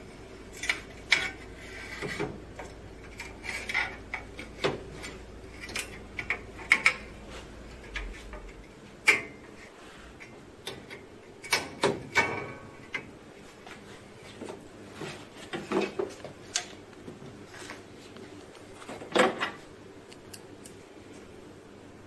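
Metal parts inside a Xerox wide-format printer being handled and fitted by hand: a sheet-metal bracket over the fuser roller set in place with irregular clicks, knocks and light clanks, some ringing briefly.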